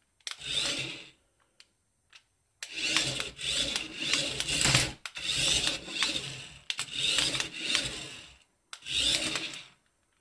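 Radio-controlled CaDA brick-built toy car driving across a hard wood-grain floor: its electric drive and plastic wheels on the floor, in about five bursts of one to two seconds as it is driven in spurts.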